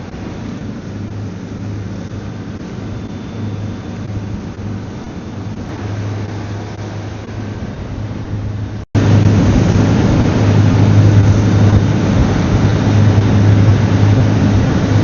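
Power catamaran's engines running steadily at cruising speed on plane, a constant low drone with the rush of the boat underway. About nine seconds in the sound cuts out for an instant and comes back much louder.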